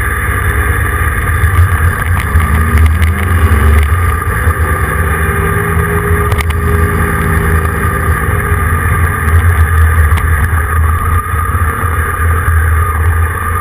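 Heavy wind rumble on the microphone of a moving vehicle-mounted camera, over engine and road noise, with an engine note that rises and falls in pitch between about two and seven seconds in.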